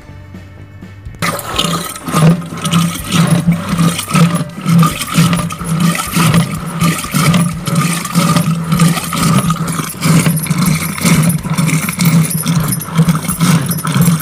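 Curd and water being churned in a clay pot with a rope-spun wooden churning staff (bilona). The staff is pulled back and forth in a steady rhythm of about two strokes a second, starting about a second in, to separate butter from buttermilk.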